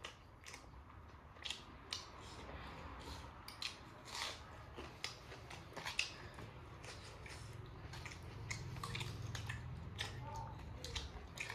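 A person eating chicken close to the microphone: biting and chewing, with many short, irregular wet clicks and smacks.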